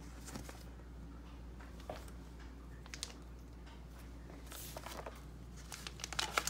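Faint handling noises of vinyl records and their sleeves being moved in a box set: a few isolated light taps and rustles, then a quick run of clicks and rustling near the end, over a steady low hum.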